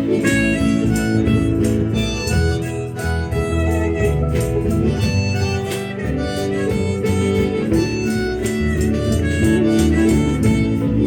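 Live acoustic music: a harmonica lead of held, bending notes over a steadily strummed guitar.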